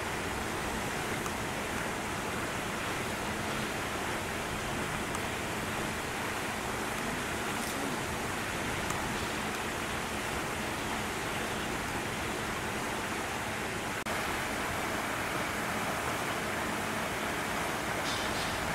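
Steady, even hiss of outdoor background noise, with a slight step in level about fourteen seconds in.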